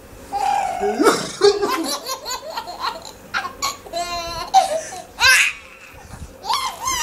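A young child laughing, high-pitched, in repeated short bouts.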